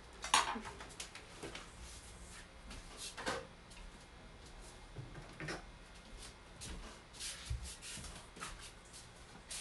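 Irregular light clicks and knocks of kitchen prep: ingredients such as jujubes and nuts being cut and handled on the counter.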